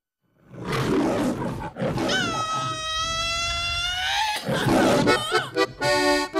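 An animal roar sound effect, a growl and then a long high drawn-out cry, opening the track; spaced accordion notes begin near the end as the song's intro starts.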